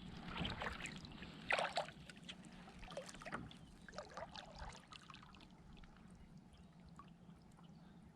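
Water trickling and splashing lightly around a kayak in a run of small, irregular sounds that die away after about five seconds, leaving only a faint steady hiss.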